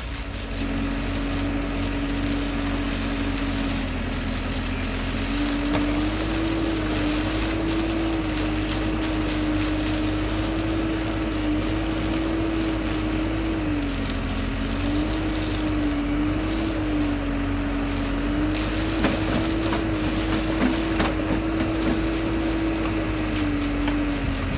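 Vehicle engine running steadily, its hum stepping up and down in pitch a few times as the revs change, over a low rumble.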